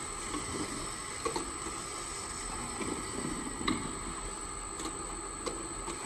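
Automatic rotary bottle-loading turntable running with a steady machine hum, with a few scattered light clicks as the empty bottles knock against each other and the turntable's stainless steel rim.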